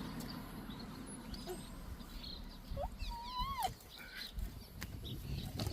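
A short, wavering animal call about three seconds in, among a few sharp clicks and light handling noise.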